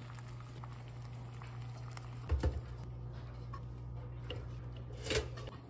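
Eggs frying in a pan: a faint crackling sizzle over a steady low hum. There are two heavy knocks a little over two seconds in and a sharp clatter about five seconds in, as toast is handled at the toaster.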